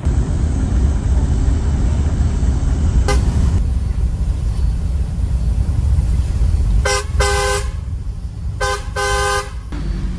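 Inside a moving coach bus, a steady low rumble of engine and road noise, with a vehicle horn tooting: one brief toot about three seconds in, then two pairs of toots near the end, each a short toot followed by a longer one.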